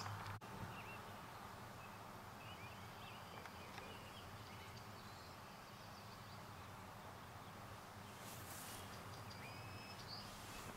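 Faint outdoor ambience: small birds chirping now and then over a low, steady hum.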